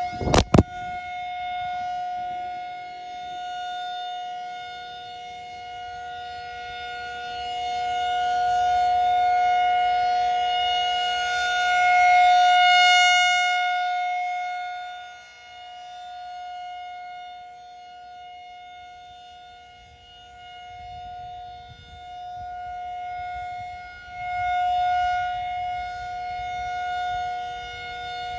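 Federal Signal 2001 rotating electromechanical warning siren sounding a steady tone on its monthly test. It swells and fades as the rotating horn sweeps past, loudest about twelve seconds in and again near the end. A couple of loud, sharp knocks come right at the start.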